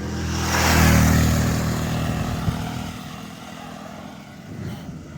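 A motor vehicle passing close by on the road. Its engine and tyre noise swell quickly to a peak about a second in, then fade away over the next few seconds.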